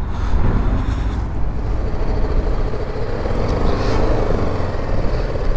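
Motorcycle engine running amid street traffic, with strong wind rumbling on the microphone.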